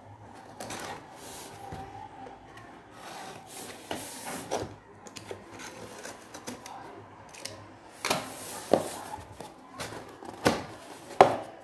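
Cardboard shipping box being cut open with a box cutter and its flaps pulled apart: irregular scraping and rustling of cardboard and packing tape, with scattered knocks and taps, a few sharper ones about 8 and 11 seconds in.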